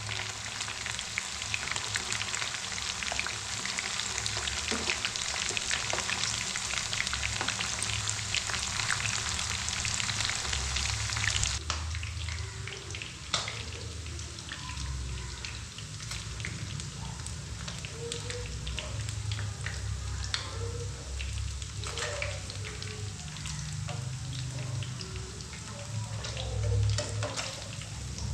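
Food frying in hot oil in a pan, a dense steady crackle. About eleven seconds in it drops abruptly to a quieter sizzle with scattered clicks and low knocks.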